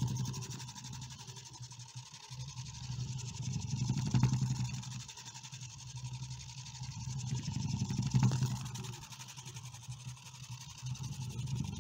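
A homemade vibrating scribble bot runs on a battery-powered small motor, buzzing steadily while its felt-tip pen legs jitter on paper. The buzz swells and fades a few times as the bot wanders.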